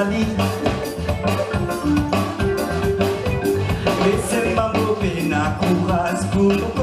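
Live séga music from a band with hand drum, drum kit, keyboard and guitar, playing a steady beat with singing.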